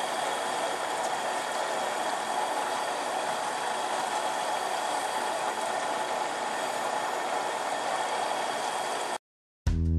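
Propane turkey fryer running with a turkey in the hot oil: a steady roar of noise from the burner and the frying oil. It stops abruptly about nine seconds in.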